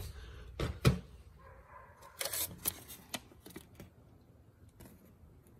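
A knock about a second in, then a torn paper label crinkling as it is picked up and handled, with a few sharp crackles around two to three seconds in that fade to faint handling noise.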